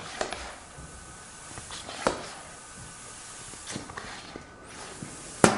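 Handling clicks and rustles from a homemade dart gun built from a sport-ball pump and tube, then one sharp pop near the end as it fires its dart.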